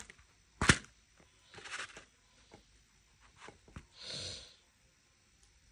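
Handling noises around a plastic plate of roasted termites: one sharp click a little under a second in, a few faint ticks, and two soft breathy swells, the second near four seconds.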